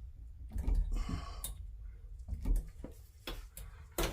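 Scattered light clicks and taps of a handheld shower head's hose nut and bracket fittings being handled and tightened by hand.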